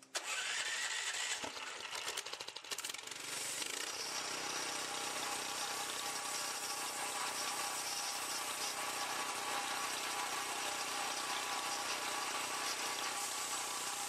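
Small gasoline engine on a homemade bandsaw mill starting up: uneven for the first three seconds or so, then running steadily with the band wheels and blade spinning.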